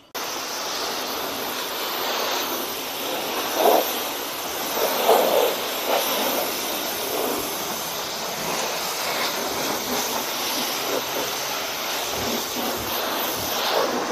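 Self-service car wash high-pressure lance spraying water onto a car's body and wheel: a steady, loud hiss of spray with a few louder spatters around four to six seconds in.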